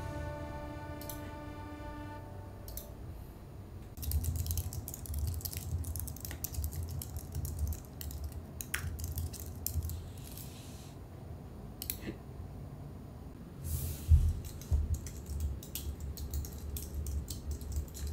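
Typing on a low-profile computer keyboard: quick runs of light key clicks with soft thuds, in two spells with a few single clicks between. A faint musical tail fades out in the first couple of seconds.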